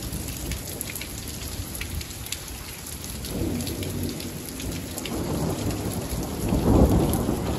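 Steady rain falling and pattering on surfaces, with a low roll of thunder that builds from about halfway through and is loudest near the end.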